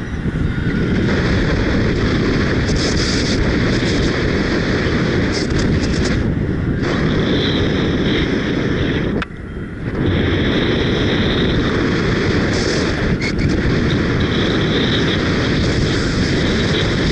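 Wind rushing and buffeting over the microphone of a paraglider pilot's harness-mounted camera, flying in rough wind of about 45–48 km/h. It is a loud, steady rumble that briefly drops away about nine seconds in.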